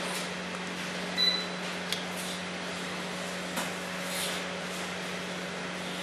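A steady low electrical hum, with soft rustles and clicks of a small plastic mini quadcopter being handled, and one short high beep about a second in.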